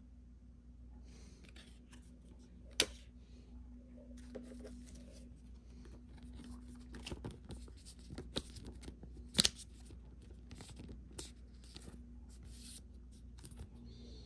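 Pokémon trading cards and their booster-pack wrapper being handled: scattered small clicks and rustling, with a sharp snap about three seconds in and a louder one near the middle. A faint steady hum runs underneath.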